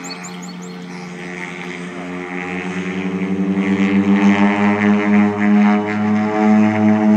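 Float plane's propeller engine at full takeoff power during its run across the water: a steady droning hum that grows steadily louder, beating in its second half.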